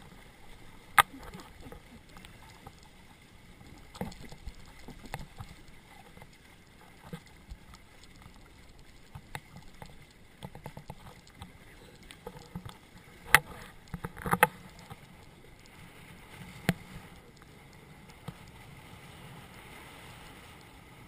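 Water slapping and gurgling against the hulls of a Hobie Cat catamaran under sail, with several sharp knocks, the loudest about a second in and two close together about two-thirds of the way through.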